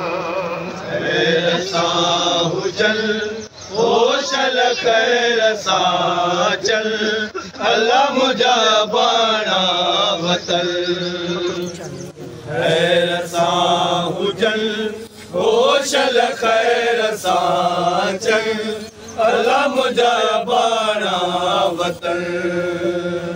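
A group of men chanting a Shia nauha, a Muharram lament: a lead voice sung into a handheld microphone with other men in the crowd singing along in a slow, drawn-out melody.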